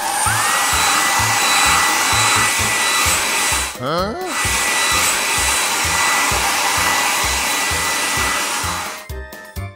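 Cartoon car-wash blower dryer sound effect: a steady rush of air with a whine that rises as it starts and then holds. About four seconds in it is broken briefly by a short run of rising squeaky glides. It cuts off about a second before the end, leaving a low music beat.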